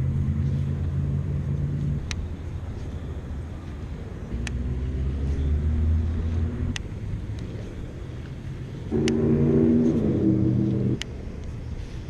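Baitcasting fishing reel being cranked in three bursts of about two seconds each: a steady gear whir that starts and stops abruptly, the last burst higher in pitch and the loudest. Faint sharp clicks fall between the bursts.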